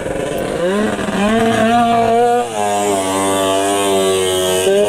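Snowmobile engine revving up, its pitch climbing over the first two seconds, then held at high, steady revs as the sled skims across open water in a watercross run.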